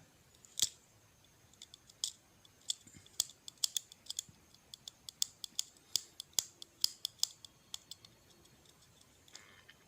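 Irregular sharp clicks and light scratches of a small tool picking at a failed LED chip on an LED bulb's board, removing its damaged yellow top. The clicks die away about a second or two before the end.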